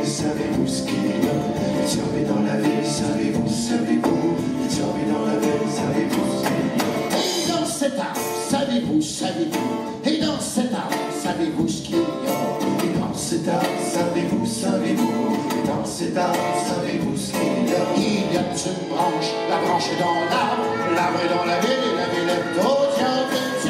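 Live acoustic folk music: an acoustic guitar strummed to a steady beat, with voices singing.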